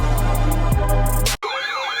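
Intro music with a drum beat cuts off abruptly about a second and a half in. An electronic siren-like alert tone follows, yelping rapidly up and down about three times a second over a lower wavering tone.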